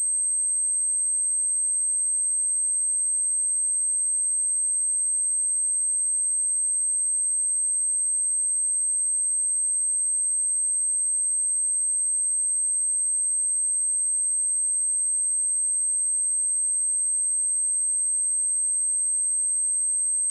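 Steady 8304 Hz pure sine tone, a single high-pitched whistle held at constant pitch and level. It is a speaker test tone.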